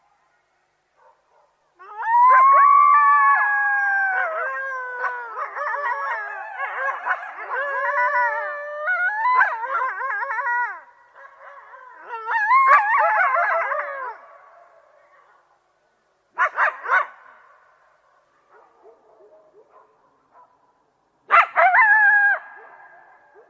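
A group of coyotes howling together, several voices overlapping in sliding, wavering calls that start about two seconds in and run for some nine seconds. A second, shorter burst follows, then two brief outbursts near the end.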